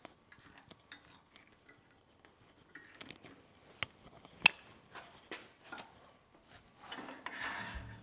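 Light metal clicks and knocks from a wood lathe's tailstock and tool rest being set and locked down, with one sharp click about four and a half seconds in and a brief scraping rub near the end.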